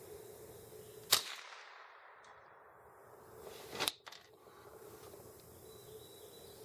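Two sharp cracks about three seconds apart from a Ruger 10/22 .22 rifle firing at a steel plate from 200 yards away.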